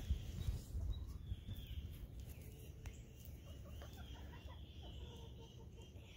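A flock of backyard chickens clucking faintly, a scatter of short calls from about three seconds in, over a low rumble that is stronger at the start.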